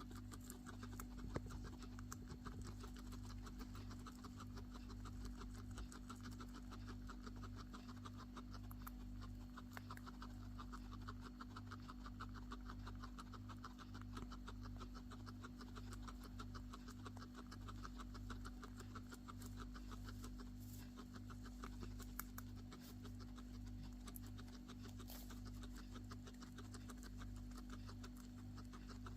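Guinea pig coughing and choking: a fast, continuous string of short breathy sounds, faint, over a steady low hum. A single sharp click comes about a second and a half in.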